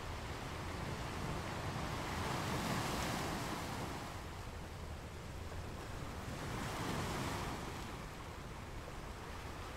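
Small sea waves breaking and washing up a sandy beach. The surf swells twice, about three seconds in and again around seven seconds, over a steady low rumble.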